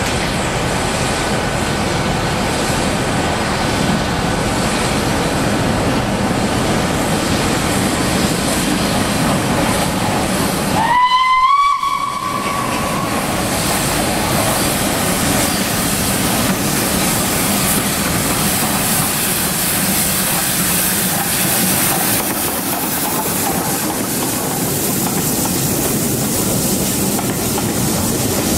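LNER B1 4-6-0 steam locomotive 61306 Mayflower working a train past, with a steady hiss of steam and running noise throughout. About eleven seconds in comes one short whistle blast that rises briefly in pitch as it opens, then holds.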